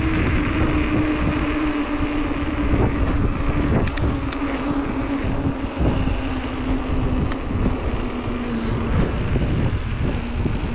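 Mountain bike rolling on asphalt: a steady tyre hum that slowly falls in pitch, with wind rumbling on the microphone.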